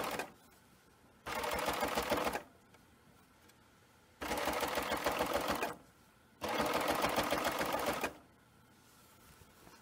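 Baby Lock Evolution serger stitching bias binding onto a quilt edge through a double fold bias binder attachment, running in three short bursts of a second or two each with pauses between, as the work is fed in stop-and-go.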